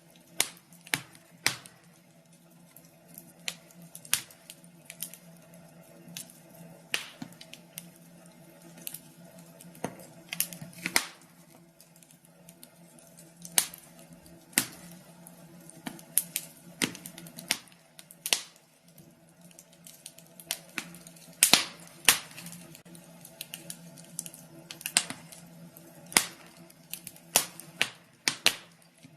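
Wood fire crackling in a fireplace: irregular sharp pops and snaps, a few of them loud, over a faint steady low hum.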